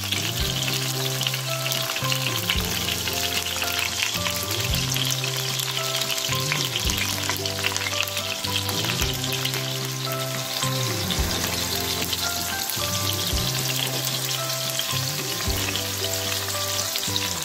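Hot oil sizzling and crackling steadily as kotlet patties, tomato halves and green chillies shallow-fry in a frying pan. Slow background music with held low notes sits underneath.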